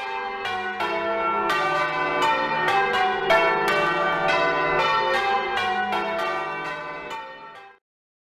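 Bells ringing in a quick peal of overlapping strikes that fades out near the end.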